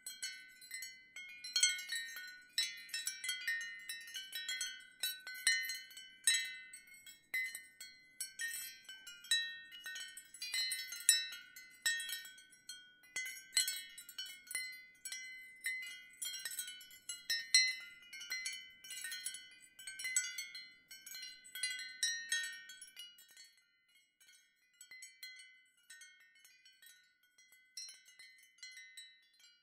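Ceramic wind chimes clinking, with many quick strikes and overlapping high ringing tones. The strikes thin out and grow quieter in the last several seconds.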